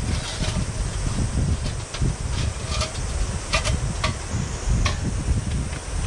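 Wind buffeting the microphone in a steady low rumble, with a few short, sharp clicks scattered through, the clearest about halfway in and near the end.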